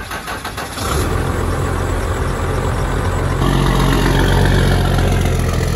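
Pickup truck engine running at low speed as the truck drives slowly off, a steady low rumble that grows louder about a second in and again from about three and a half seconds in as the truck comes close alongside.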